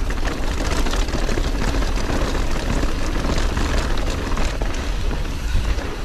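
Wind rumbling on a GoPro Hero 9's microphone as a YT Tues downhill mountain bike is ridden fast down a dirt trail, with tyre noise and scattered knocks and rattles from the bike over rough ground.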